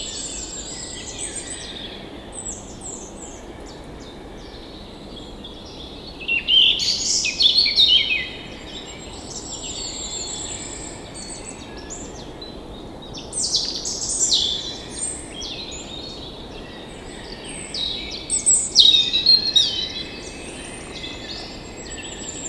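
Songbirds singing and chirping in bursts, loudest about six, thirteen and eighteen seconds in, over a steady hiss of background noise.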